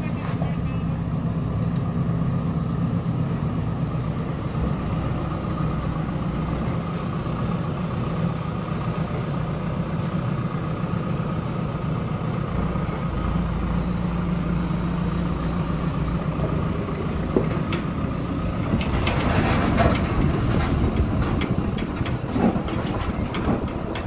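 JCB backhoe loader's diesel engine running steadily as the machine moves and works. Near the end, a spell of clattering and scraping rises over the engine.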